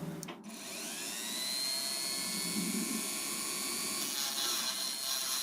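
A small motor spinning up with a rising whine about half a second in, then running steadily.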